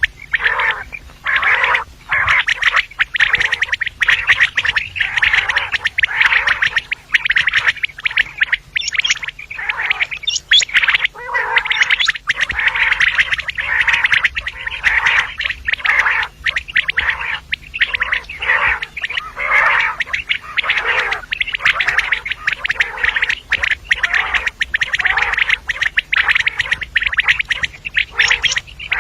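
Female common quail calling: dense runs of rapid short notes, broken by brief gaps every second or two.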